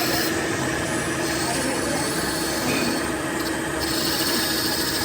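Factory machinery running steadily, a continuous mechanical noise with several high steady tones held through it.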